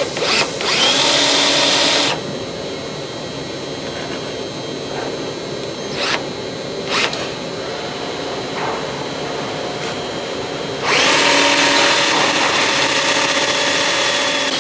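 Power drill running a countersink bit into steel plate, a steady whine for about two seconds, then a second longer run starting near the end. Between the runs, steady shop noise and a couple of sharp knocks.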